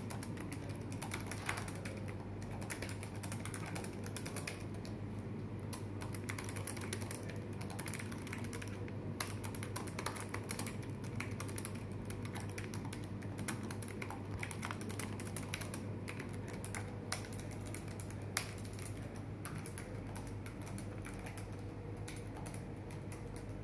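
Fast, continuous touch-typing on an HP laptop's chiclet keyboard, a dense run of light key clicks at about 76 words per minute during a typing-speed test. A steady low hum sits underneath.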